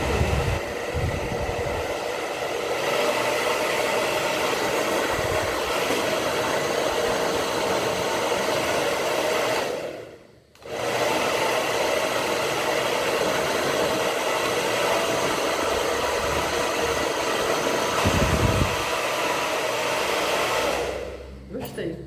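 Taiff 2100-watt hair dryer running with a steady whir. It cuts out for a moment about ten seconds in, starts again, and is switched off near the end.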